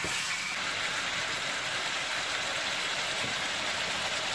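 Bone-in chicken pieces sizzling in hot oil in a kadhai on medium flame, a steady even frying hiss.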